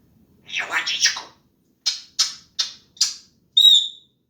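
African grey parrot making mimicked mouth noises: a short breathy burst, then four sharp clicks about a third of a second apart, then a brief high whistle.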